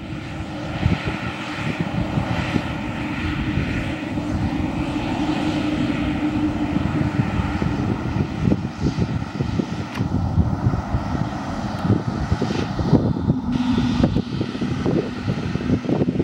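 Airliner engines running with a steady roar and whine, slowly growing louder; the whine drops slightly in pitch near the end.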